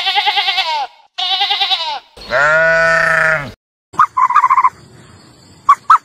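Sheep bleating three times: two quavering bleats, then a longer, deeper one. About four seconds in, short bursts of quick repeated calls from a different animal follow.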